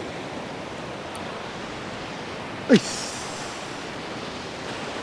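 Ocean surf washing steadily on the beach. About two and a half seconds in comes one brief, loud sound that falls sharply in pitch.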